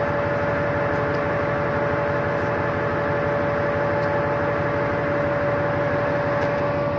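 Ship's machinery running steadily: an even rushing noise with a constant whine held on one pitch.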